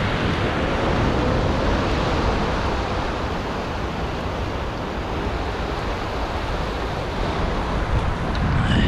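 Steady wash of small waves breaking over the rocks of a jetty, mixed with wind buffeting the microphone.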